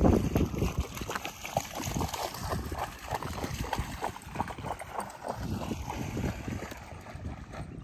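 Footsteps and paws crunching on a coarse gravel shore: a dense, irregular patter of short crackly steps, over a low wind rumble.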